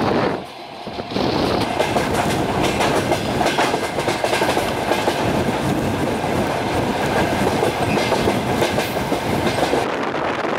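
Passenger train running along the line, heard from an open carriage window: a steady rush of wheel and rail noise with clickety-clack over the rail joints. It dips briefly quieter about half a second in, then runs on at full level.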